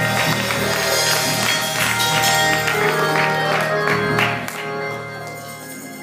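Live gospel church music with the congregation clapping and calling out; it drops in loudness about four seconds in.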